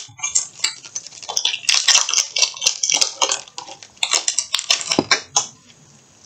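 Foil Pokémon card booster pack wrapper crinkling and crackling as it is torn open and the cards are pulled out, dying away about five and a half seconds in.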